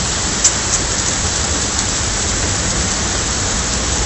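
Heavy rain pouring steadily onto a flooded street, with a couple of sharp ticks about half a second in.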